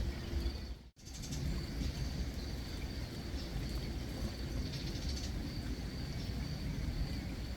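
Garden ambience: a steady low rumble with a few short bird calls and a faint, steady high-pitched tone, broken by a brief dropout about a second in.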